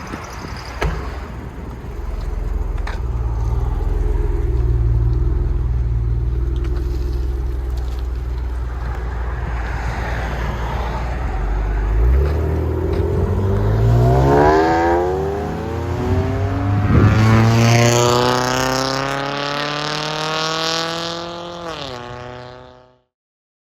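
2007 Acura TL Type S's 3.5-litre V6 through a Tsudo cat-back exhaust with high-flow cat, rumbling steadily at low revs, then accelerating with rising pitch. Near the middle of the climb the pitch drops briefly as the car shifts, then rises again before the sound cuts off.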